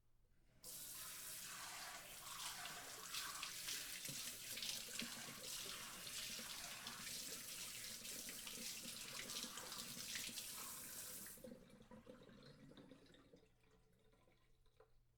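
Water sprayer spraying a steady hissing jet of water, which starts suddenly about a second in and cuts off about eleven seconds in. After it cuts off, a softer wash of water fades away over a couple of seconds.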